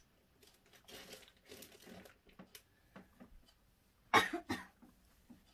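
A person coughs once, short and sharp, about four seconds in, after a few faint soft noises.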